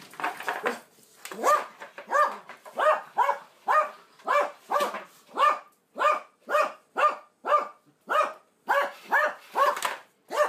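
Small white dog barking over and over in short, quick barks, about three a second, while it plays with a pink plastic bowl.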